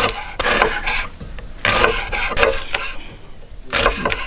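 Knife slicing green onions on a wooden cutting board: slow, uneven strokes, each a short rasp through the onion and onto the board.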